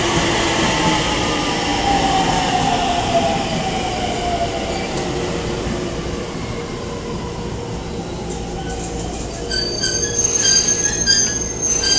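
E231-series electric train braking into a station, its traction-motor whine falling in pitch as it slows over the rumble of the wheels on the rails. From about nine seconds in come short, high squeals as it nears a stop.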